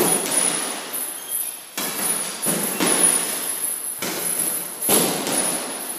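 Boxing gloves landing punches on a hanging heavy bag in combinations, about six sharp thuds at uneven gaps of half a second to a second and a half.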